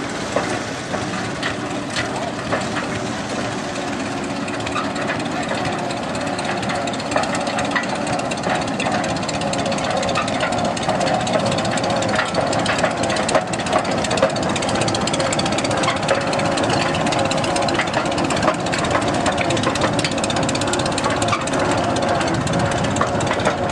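Antique Sandusky tractor's engine running as the tractor is driven along, a steady, rapid rattling beat that grows a little louder as it comes closer.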